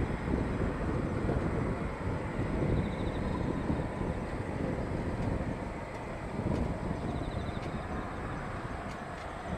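Eurofighter Typhoon's twin jet engines running at taxi power, heard from far off as a low, steady rumble, mixed with gusts of wind on the microphone.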